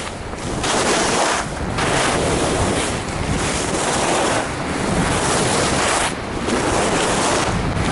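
Skis hissing and scraping over snow at speed, swelling and easing about every second and a half as the skier turns, with wind buffeting the microphone.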